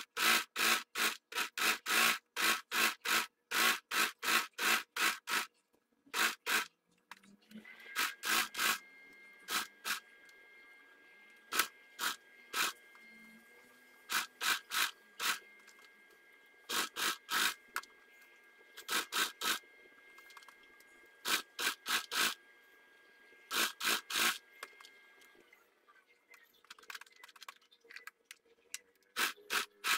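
Domestic electric sewing machine stitching slowly through many layers of quilted fabric, a clack for each stitch at about three or four a second. It runs steadily for the first several seconds, then in short spurts with pauses between.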